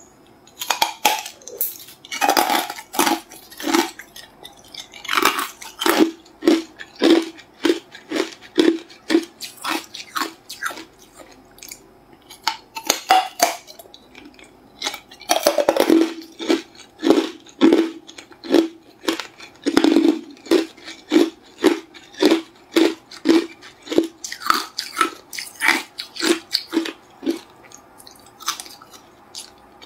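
Clear hard ice being bitten and chewed: a loud crack with each bite every few seconds, and between bites quick rhythmic crunching as the pieces are chewed, about two crunches a second.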